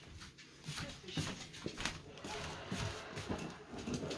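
Faint, irregular rustling and small taps from hands handling a small plastic plant pot and picking at the moss around a sundew in it.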